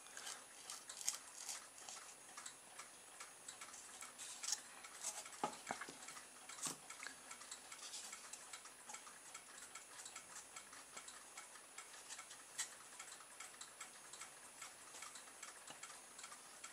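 Faint, steady ticking throughout, with a few louder clicks and knocks from the small polystyrene and pen-tube boat being handled and set into a glass bowl of water.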